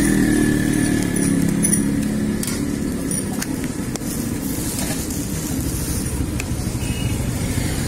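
Steady low rumble of road traffic and running vehicle engines, with a pitched engine hum fading out over the first couple of seconds. A few faint clicks of a steel spatula on the iron griddle come through in the middle.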